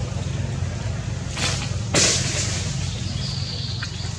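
A single sharp crack about two seconds in, over a steady low rumble.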